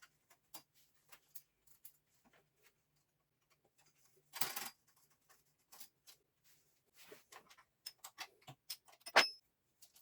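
Metal parts and hand tools being handled during lathe work: scattered light clicks and knocks, a short scraping rub about four seconds in, and a sharper knock near the end.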